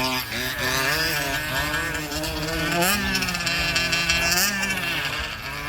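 Small two-stroke gas engines of large-scale RC trucks revving up and down as they race, several engine notes rising and falling over one another.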